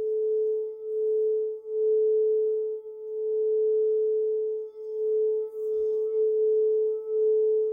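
Singing bowl ringing one sustained tone that swells and fades in a slow pulse, roughly once a second.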